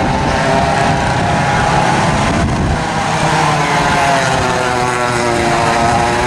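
A pack of vintage racing go-karts on the circuit: several small kart engines running at once, modified McCulloch MC-49 two-strokes mixed with flathead four-strokes. Their overlapping engine notes rise and fall as the karts accelerate and back off.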